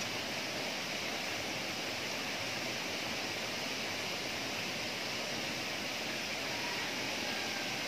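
Steady outdoor background hiss, even throughout, with no distinct events standing out.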